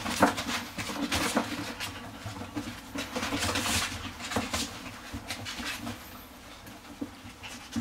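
A puppy sniffing and nosing about on a fleece blanket: irregular snuffles and scratchy rustles in bursts, busiest in the first second and a half and again from about three to four and a half seconds in.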